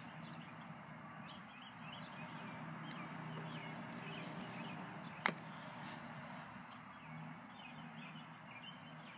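Faint bird chirps over a steady low hum, with one sharp click a little past the middle.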